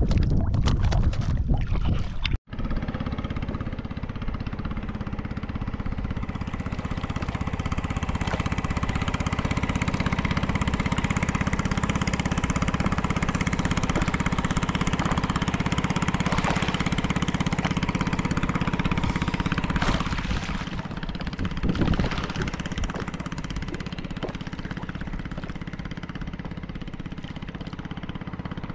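Small fishing boat's engine running steadily, starting abruptly after a cut about two seconds in.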